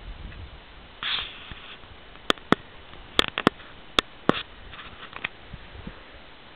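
A dog sniffing at the ground in short hissy breaths, with a series of sharp clicks between about two and four and a half seconds in.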